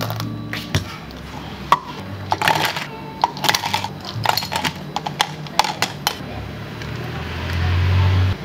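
Cafe counter preparation sounds: a run of sharp clicks and clatters of utensils and containers being handled, then a low hum that swells near the end and cuts off suddenly.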